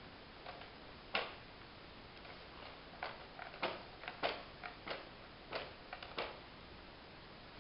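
Scattered light clicks and knocks, about a dozen at irregular intervals, of toys being handled.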